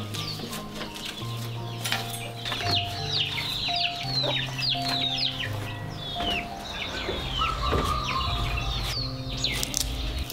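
Chickens clucking, with many quick high chirps that fall in pitch, over soft background music with held low notes.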